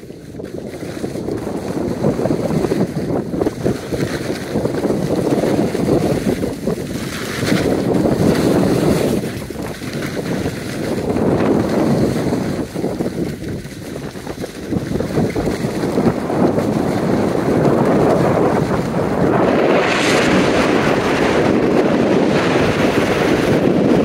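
Wind buffeting the microphone while sliding fast down a groomed ski slope, with the scrape of edges on packed snow swelling and easing with each turn. It grows louder and hissier over the last few seconds.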